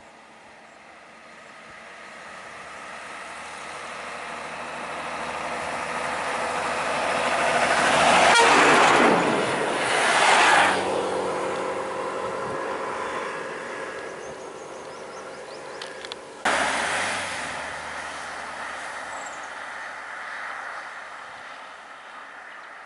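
A heavy road vehicle's engine and tyres growing louder as it approaches, passing close about eight to ten seconds in, then fading. The sound jumps up abruptly about sixteen seconds in, then dies away again.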